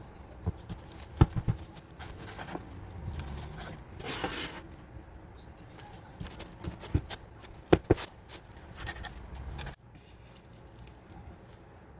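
Kitchen handling noises: scattered sharp knocks and clicks with scraping, a short rustling swish about four seconds in, and a few more knocks near the middle.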